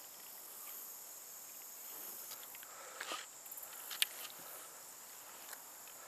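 A steady, high-pitched chorus of summer insects, with a brief knock about three seconds in and a sharp click about a second later.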